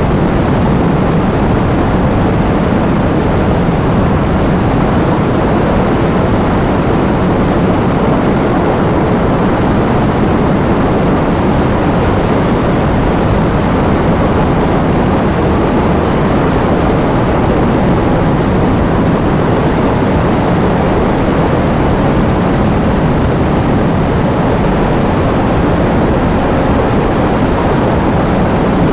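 Heavy rain falling: a loud, steady, deep rush with no separate drops or gaps standing out.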